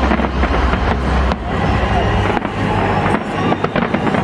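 Aerial fireworks going off in a dense run of sharp cracks and bangs, with a low rumble over the first second and a half.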